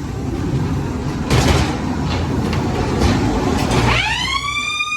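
Ghost train ride car rumbling along its track, with bursts of rushing noise. About four seconds in, a loud horn-like tone swoops up in pitch and then holds steady, a scare effect on the ride.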